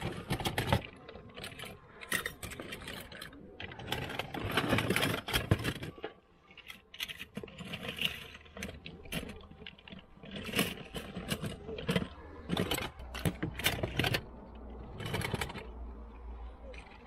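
Toy cars clinking and clattering against each other as hands rummage through a box of them, in short irregular bursts of clicks and rattles.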